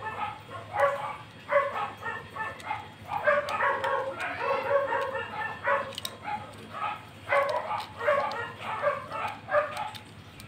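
A dog barking repeatedly in short bursts, some coming in quick runs.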